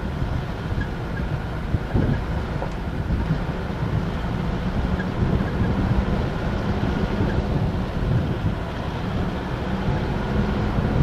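Mitsubishi Pajero running in a steady low rumble while driving off-road, with wind buffeting the microphone.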